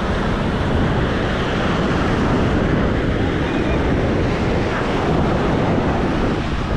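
Ocean surf washing on a beach, heard as a steady noise, with wind blowing across the microphone.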